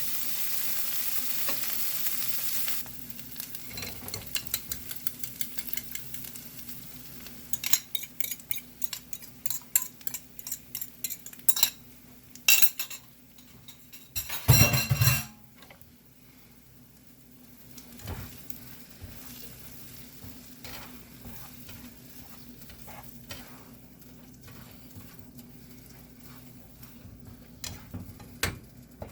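Chorizo and eggs frying in a pan, loudest for the first few seconds, then a quieter steady sizzle. A utensil clicks and scrapes against the pan in a quick run of strokes as the food is stirred. One loud knock comes about halfway through.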